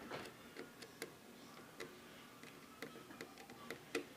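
Irregular light clicks and taps from hands and a small tool working on the plastic body of a Syma X8C quadcopter, prying out a part during disassembly.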